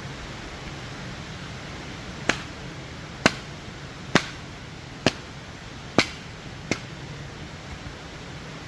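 Six sharp knocks, about one a second, over a steady rushing noise.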